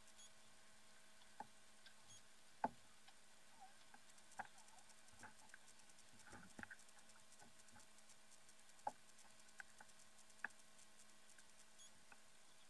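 Near silence with a faint steady hum and about ten short, sharp clicks and taps at irregular intervals, the loudest about two and a half seconds in.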